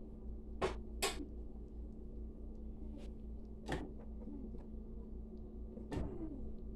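A few short knocks and clunks: two close together near the start, one around four seconds and one around six seconds, the later ones as hands grip and shift a slow cooker on the countertop. A steady low hum runs underneath.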